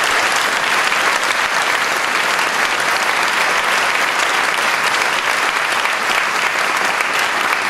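Large theatre audience applauding steadily, a sustained round of clapping.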